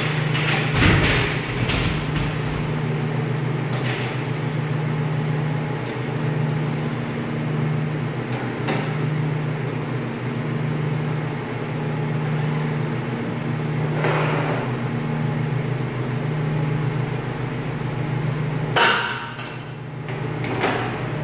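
Metal parts of a stainless-steel band saw being fitted back together by hand: scattered knocks and clanks, with a louder cluster near the end as the stainless table is slid into place. Under them runs a steady machine hum that swells and fades every second or so.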